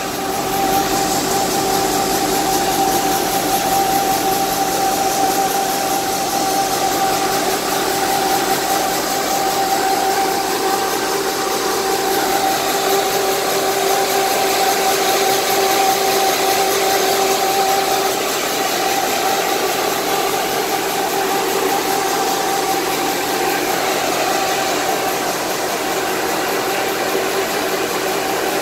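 Engine of an enclosed standby generator set running steadily, with a constant whine over the engine noise.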